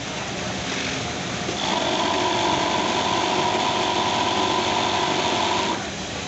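Kansai multi-needle chain stitch sewing machine running at a steady speed, a high, even whine that starts about a second and a half in and stops near the end as a seam is sewn.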